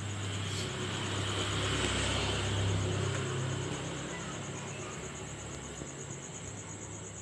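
A motor vehicle passing by, its low engine hum growing to a peak about two to three seconds in and then fading away. Insects chirp steadily in the background.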